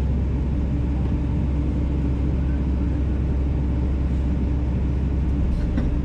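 Kobelco 210LC-9 excavator's diesel engine running steadily.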